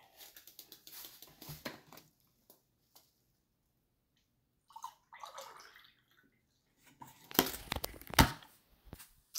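Spilled orange juice dripping and splashing, with near silence in between. A cluster of loud knocks and clatters comes about three-quarters of the way through.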